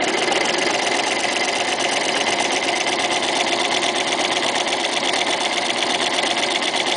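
Toyota FSG325 sewing machine running steadily at speed with a walking foot fitted, stitching a shortened triple zigzag through layered fabric in a rapid, even rhythm.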